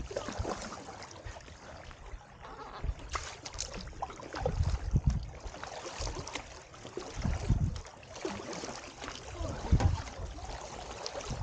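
Kayak paddle strokes in calm water: splashing and dripping from the paddle blades and water lapping at the hull, with a low thud every two to three seconds.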